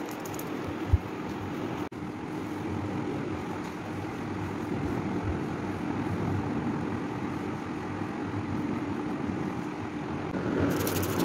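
Steady mechanical hum and rumble with a faint steady tone, and one dull thump about a second in.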